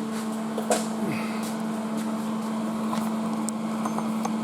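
A steady mechanical hum, such as a fan or motor, with a few light clicks.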